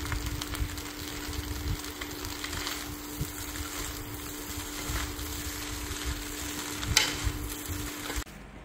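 Fried rice sizzling in a pan while it is stirred and turned with a metal spatula and a fork, the utensils knocking and scraping against the pan. A steady hum runs underneath. Everything stops abruptly shortly before the end.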